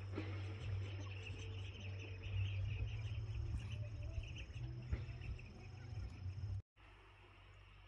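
Insects chirping in a dense, high-pitched chatter with a steady high tone, over a continuous low hum. The sound cuts off abruptly about six and a half seconds in, leaving only a faint, quieter background.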